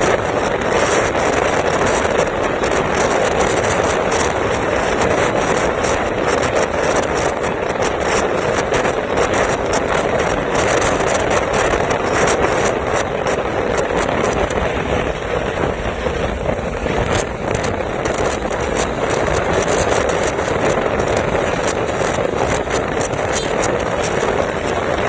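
Motorcycle riding along at a steady pace: the steady rush of wind over the microphone mixed with engine and road noise.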